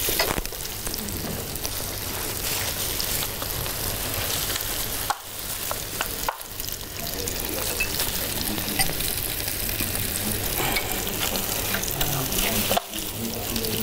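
Pork ribs sizzling steadily in a pan of barbecue sauce over a low flame, with three brief drops in the sound.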